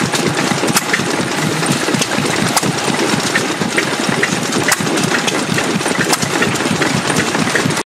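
1927 Associated Chore Boy 1¾ hp single-cylinder stationary engine running with its pump, a steady busy clatter with sharp clicks every second or two. It cuts off abruptly right at the end.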